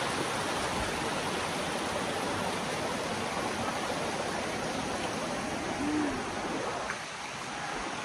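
Shallow creek water rushing steadily over rocks, a little quieter near the end. A brief low tone sounds about six seconds in.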